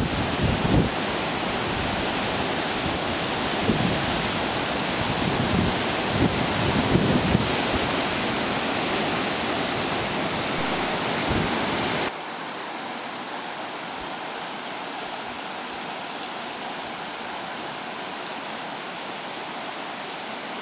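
Steady rush of a waterfall over rock, with gusts of wind buffeting the microphone in the first half. A little past halfway the sound cuts abruptly to a quieter, smoother rush of falling water.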